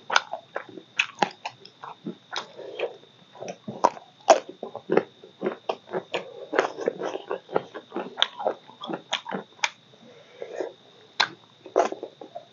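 Close-up mouth sounds of a person eating rice and curry by hand: chewing with wet lip smacks and clicks, several a second in an irregular rhythm.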